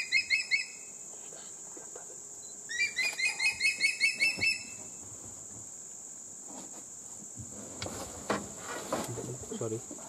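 Steady high-pitched drone of insects, with a bird giving two bursts of rapid repeated calls, about five notes a second: one at the start and one about three seconds in.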